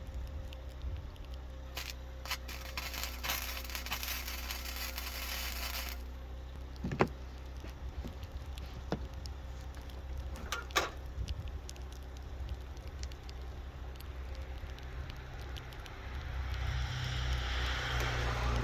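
Wire-feed welder arc crackling for about four seconds, followed by a few sharp knocks, and a louder rushing noise near the end, over a steady low hum.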